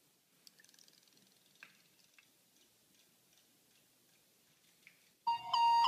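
A few faint small clicks and taps over very quiet room sound, then about five seconds in, loud music with steady held electronic tones starts abruptly.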